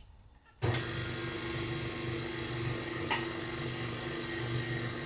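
Electric tilt-head stand mixer motor switching on about half a second in and running at a steady whir, turning a dough hook through runny chocolate cupcake batter while warm Guinness is poured in.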